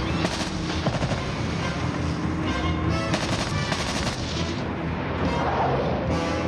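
Rapid bursts of automatic rifle fire from an M16-type rifle, dense through the first four seconds or so, over a dramatic film score.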